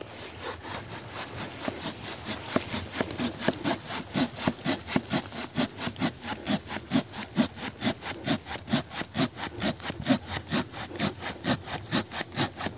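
Silky Gomboy Curve curved-blade folding hand saw cutting through a log with quick, even push-pull strokes, about three a second, growing louder over the first few seconds.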